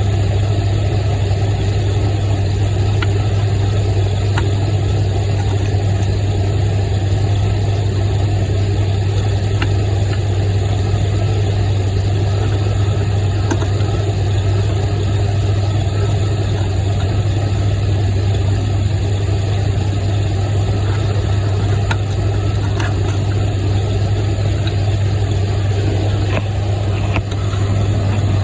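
A steady low hum with no change in pitch or level, with a few faint, scattered clicks.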